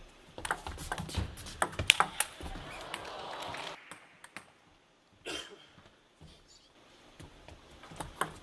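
Table tennis ball clicking off the rackets and the table during a rally: a quick run of sharp ticks in the first couple of seconds, then only a few scattered ticks.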